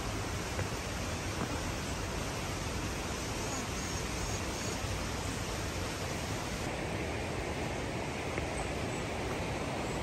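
Steady rushing of a mountain stream, an even hiss with no breaks.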